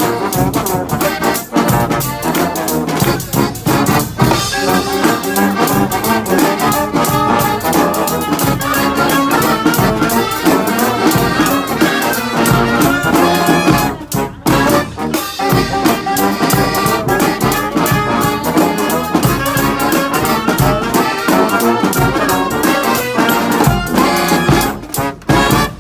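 A brass street band playing live: trumpets and trombones over a steady drum beat. The music drops out for a moment about halfway through and again just before the end.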